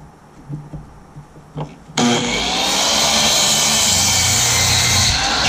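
Miter saw starting up about two seconds in and its blade cutting through a wooden 4x4, loud and steady. Before that, a few light knocks as the timber is handled.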